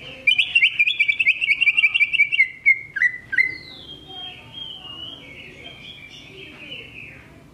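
Cucak ijo (greater green leafbird) singing: a loud, fast run of repeated notes for about two seconds, then two falling slurs, then a softer warbling phrase that trails off near the end.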